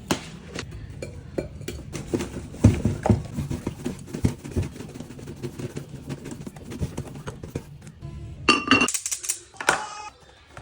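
Household items being handled and set down while restocking: a run of light knocks and clinks, with a brief ringing clink about eight and a half seconds in.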